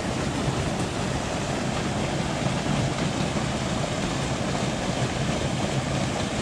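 Water rushing steadily out of a concrete culvert pipe and pouring into the creek pool below it.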